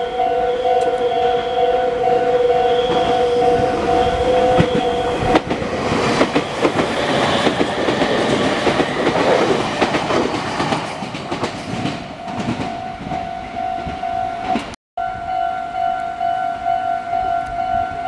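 Japanese level-crossing alarm ringing with a steady pulsing electronic tone. From about five seconds in to about twelve, the close pass of a Meitetsu electric train adds a loud clatter of wheels over the rail joints. The sound drops out for a moment about fifteen seconds in, and the alarm then rings on.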